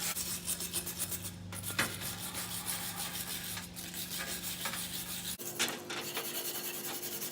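Wire brush scrubbing loose rust off an old steel J. H. Williams wrench, a continuous run of rapid scraping strokes.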